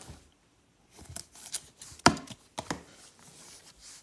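Baseball trading cards being handled and flipped through by hand: a handful of sharp taps and flicks over a light rustle, the loudest about two seconds in.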